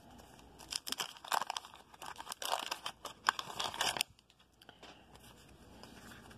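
Plastic wrapper of a 1988 Fleer baseball card rack pack being torn open and crinkled by hand. It stops suddenly about four seconds in.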